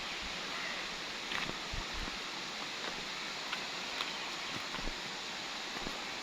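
Steady outdoor hiss of wind and rustling, with a few soft thumps and faint clicks scattered through it.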